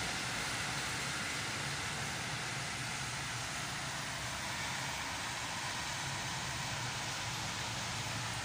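Steady hiss of rain falling on a wet street, with a faint low hum underneath.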